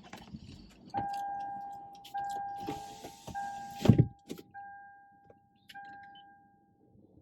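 A car's dashboard warning chime pings about five times, one ping a second, each fading out, as the ignition is switched back on. Near the middle there is a short rush of noise and then a loud thud.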